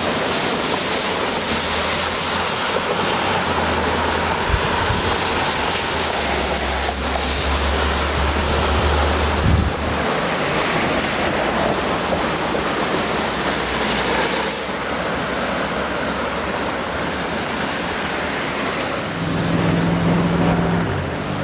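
Swollen, fast floodwater of a river rushing and churning over a weir, a loud, steady wash of water noise. A low droning hum joins near the end.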